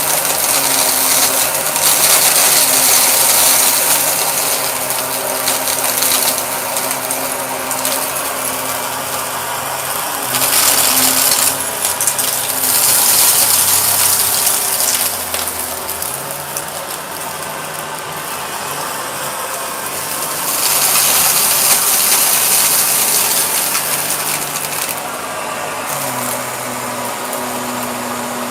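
Purple Shark vacuum cleaner running, its motor humming steadily while the high rushing hiss of the suction swells and fades several times.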